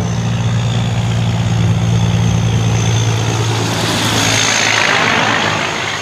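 Diesel semi truck engine running with a steady low drone and road noise, swelling louder about four seconds in as a tractor-trailer passes close by.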